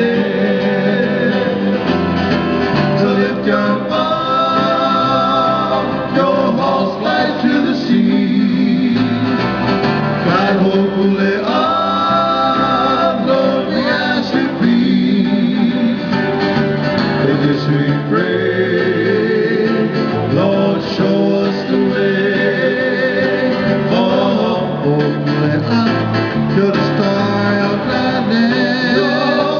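A live song: a singer holding long, wavering notes over strummed acoustic guitar.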